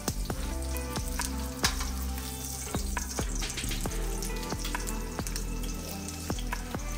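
Ribeye steak searing in hot peanut oil in a cast-iron pan: a steady sizzle broken by irregular sharp pops and crackles of spitting oil.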